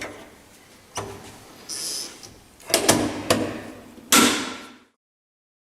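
Plastic detector casing being handled: a few clicks and knocks, then one louder knock about four seconds in that fades quickly, like the front door of a VESDA-E aspirating smoke detector being shut.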